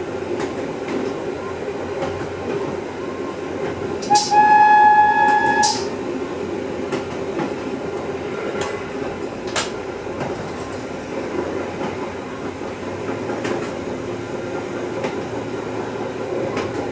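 Fiat-built diesel railcar (ex-SJ Y1) running steadily on the track, heard from the driver's cab as an even engine and running noise. About four seconds in, a single horn blast of about a second and a half sounds over it.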